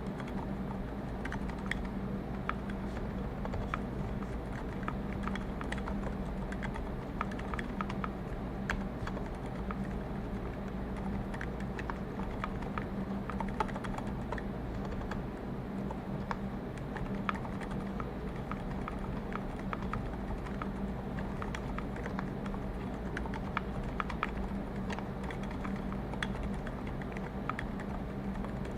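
Continuous typing on a Klippe mechanical keyboard with lubed Cherry MX Zilents silent tactile switches and a brass plate: quiet, muffled keystrokes at an irregular typing pace. Under them runs a steady low hum, room noise brought up by a raised mic gain.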